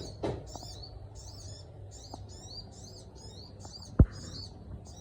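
Small songbird calling in quick repeated high chirping phrases, two to three a second, in a territorial call-and-answer with a wild bird. A single sharp knock sounds about four seconds in.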